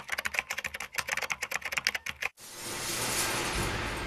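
Rapid typing on keys, a quick run of clicks that cuts off abruptly a little over two seconds in; then a steady rushing hiss fades up and holds.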